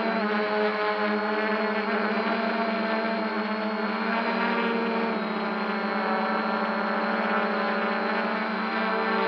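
Quanum Venture quadcopter's brushless motors and propellers hovering, a steady buzzing drone hum heard from the camera mounted on its underside, the pitch wavering slightly as it holds position.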